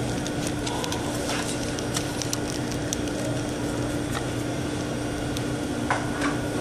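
Steady background hum with a constant low tone and a fainter higher one, with a few faint ticks and taps of trading cards being handled and set down on a tabletop.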